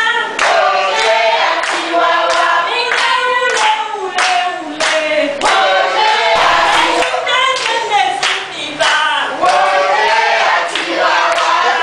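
A group of people singing together and clapping their hands on a steady beat.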